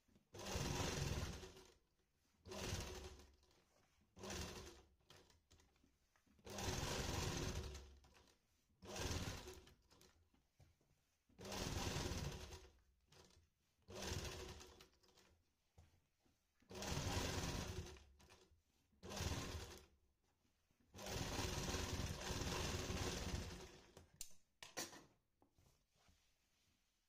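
Domestic sewing machine stitching in short stop-start runs, about ten bursts of half a second to three seconds with brief pauses between them, the longest near the end, followed by a few small ticks.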